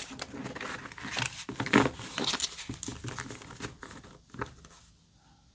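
Tarot cards being shuffled by hand: a run of quick papery flicks and taps that thin out and stop about four seconds in.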